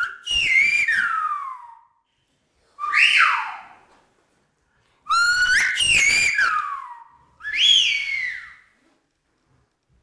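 A man whistling a person's name in Silbo Gomero, the whistled language of the Canary Islands, with his fingers in his mouth, the traditional way of calling someone. It comes in four loud phrases with sliding pitch that rises and falls, split by short pauses.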